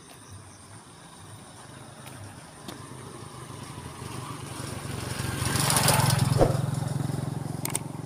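A motorcycle approaches and passes close by. Its engine grows louder for about six seconds, drops in pitch as it goes past, then begins to fade as it moves away.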